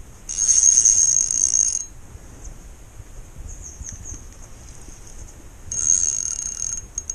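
Fishing reel drag buzzing as a hooked carp pulls line off against it, in two runs: one of about a second and a half, then a shorter one near the end. The fish is making a hard run and taking line.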